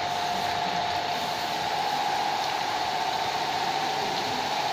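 A motor running steadily at idle: a constant whine over an even hiss, with no change in speed.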